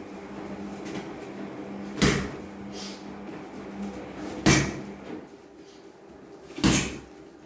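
Boxing-glove punches landing on a water-filled aqua punching bag, a 22-inch Heavy Hitters bag three-quarters full of water: three heavy thuds about two seconds apart. A faint steady low hum runs under the first few seconds.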